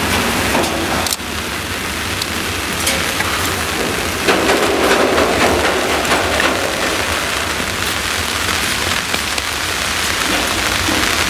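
Steady hiss of pouring rain, with the low rumble of a freight train of tank wagons rolling away underneath.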